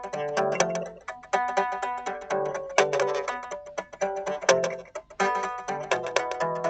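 Guitar played solo and improvised: quick picked notes and ringing chords in short phrases, each fading before the next begins, with new phrases starting about a second in, near the middle and about five seconds in.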